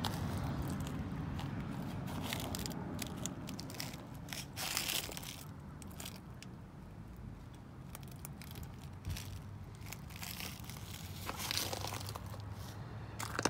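Irregular crunching, scraping and clicking from footsteps and from handling of a hand-held phone, over a steady low hum.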